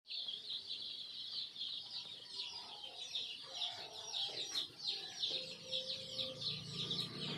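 A flock of chickens in a poultry farm calling: many short, high, overlapping peeps keep up without a break, with a few lower clucks in the middle.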